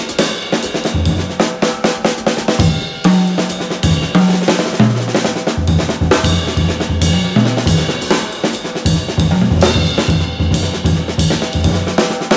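Background music with a steady drum-kit beat and a bass line stepping between notes.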